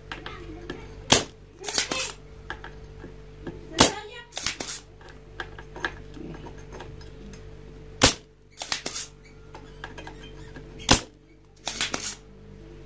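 Hand-tool clicks and snaps from work on a CRT TV circuit board: four times, a single sharp click followed about half a second later by a short rattling cluster of clicks, over a steady low electrical hum.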